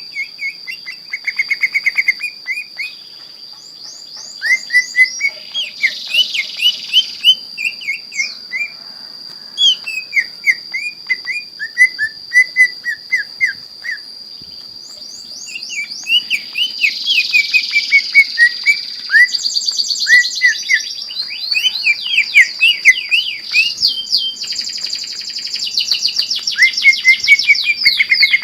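A cucak ijo (greater green leafbird) singing in full song. Rapid runs of short down-slurred whistled notes are broken by bursts of harsher chatter, over a steady high-pitched tone.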